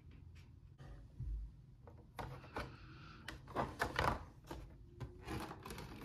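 Thin clear plastic packaging tray being handled, giving irregular crinkles and clicks from about two seconds in, with a soft low thump shortly before.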